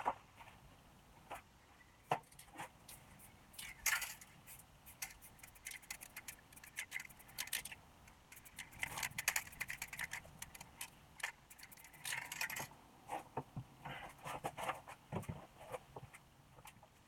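Paper stencil sheets and small hand tools being handled on a wooden worktable: irregular rustles, scrapes and light clicks, with two denser spells of rustling in the middle.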